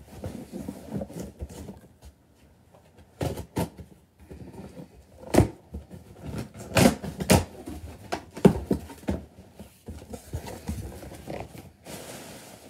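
Cardboard shipping box being opened by hand: an irregular run of knocks, scrapes and crackles from the cardboard and packing tape, with a short rustle near the end.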